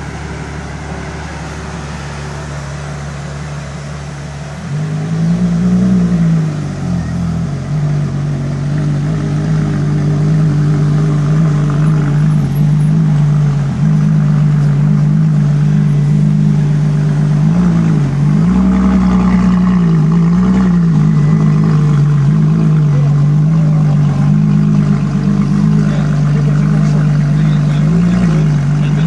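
Ferrari LaFerrari's V12 running with the car at a standstill. About five seconds in it gets louder and settles into a steady, fast idle. A few short rises and falls in pitch follow, like light blips of the throttle.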